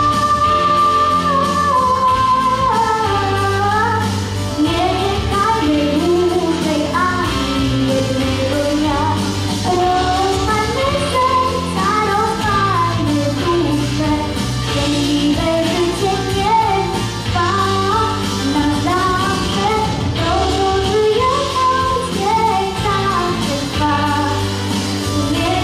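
A young girl singing a song into a handheld microphone over instrumental accompaniment, holding a long high note at the start before the melody moves up and down.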